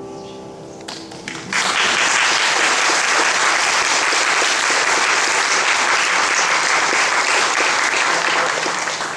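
Final piano chord dying away, then a church audience applauding, the clapping beginning about a second and a half in and holding steady before dropping off near the end.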